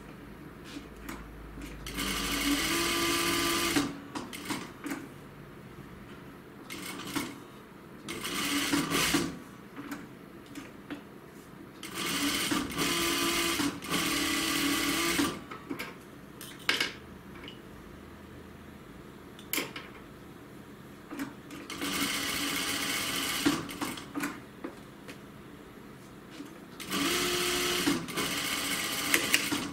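Juki industrial single-needle sewing machine stitching in five short runs of one to three seconds each, starting and stopping each time. Light clicks can be heard in the pauses between runs.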